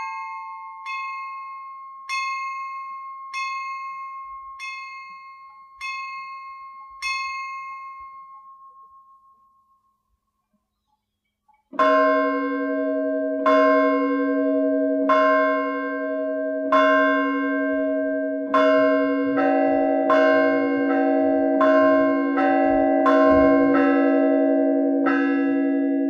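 Russian Orthodox church bells ringing a perezvon for the blessing of water. A small high bell is struck alone about once a second, its strokes dying away to a short pause; then, about twelve seconds in, larger, lower bells sound together in a steady beat that quickens as another bell joins.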